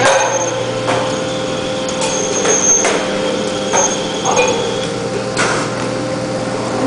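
Sheet-metal V-grooving machine running: a steady hum with irregular metallic knocks and clanks about once a second.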